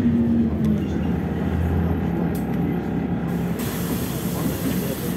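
Interior drone of a LiAZ 6213.65 articulated city bus under way: steady engine and road noise, the engine note dropping slightly about half a second in. A hiss joins about three and a half seconds in.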